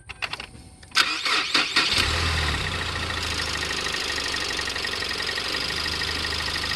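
2018 Ford Explorer starting: a few sharp clicks, then the starter cranks briefly, and about two seconds in the engine catches and settles into a steady idle.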